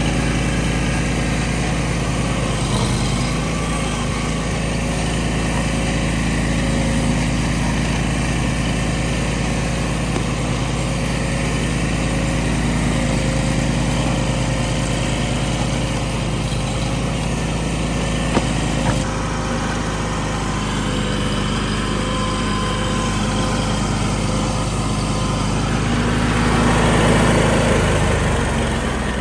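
Bandit SG40 stump grinder's engine running steadily under a loud, even drone. The sound shifts abruptly about two-thirds of the way through and swells briefly near the end.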